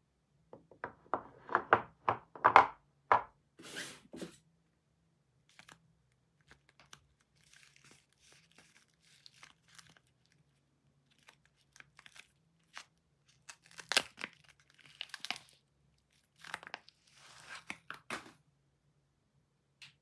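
A bar of soap's printed wrapper being handled, crinkled and torn open. The sound comes in bunches of crackling and tearing near the start and again in the second half, with faint rustling in between.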